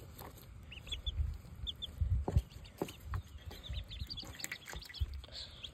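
Baby chicks and ducklings peeping, many short high cheeps scattered through, with a few soft low thumps from handling or movement.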